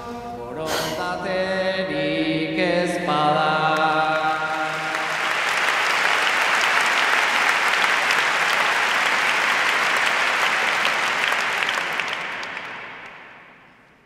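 A large crowd singing together for the first few seconds, then breaking into loud applause that holds steady and fades out near the end.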